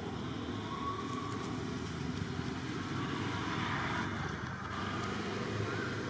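Steady low rumble of motor vehicle traffic, with a few faint short high squeaks over it.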